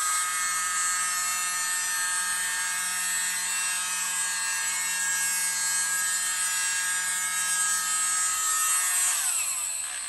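Mini USB-powered leaf-blower-style keyboard duster running: its small electric motor and fan give a steady whine, then wind down with falling pitch near the end as it is switched off.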